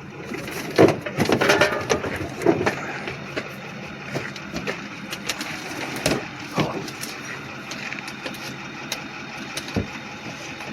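Heavy thuds and scraping as a vending machine is shifted in a pickup truck's bed, loudest about one to two and a half seconds in, followed by scattered knocks and clicks.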